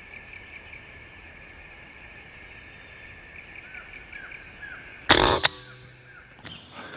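A single shot from a PCP air rifle about five seconds in: one sudden, loud, brief crack. A steady high-pitched drone sits behind it.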